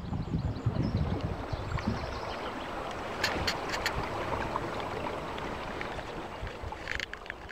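River water and wind noise around a boat, a steady rushing wash, with a few sharp clicks about three seconds in and again near the end.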